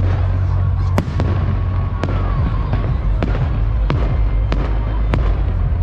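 Fireworks display: a rapid, irregular string of sharp bangs from bursting shells, about ten in under six seconds, over a continuous low rumble.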